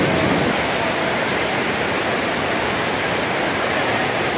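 The Parvati, a fast mountain river, rushing with a loud, steady roar.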